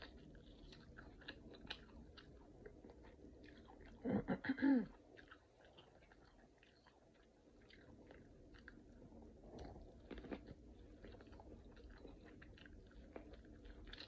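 Biting and chewing corn kernels off the cob, with many small crunches and wet mouth clicks. About four seconds in comes a brief, loud vocal sound from the eater.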